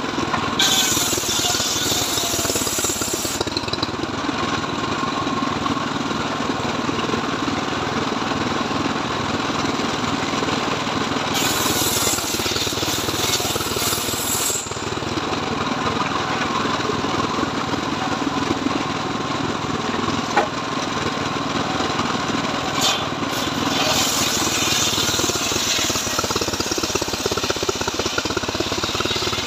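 Engine of a homemade circular-saw mill running steadily, with the blade cutting through mahogany timber in three long stretches of a few seconds each, and a sharp click about two-thirds of the way through.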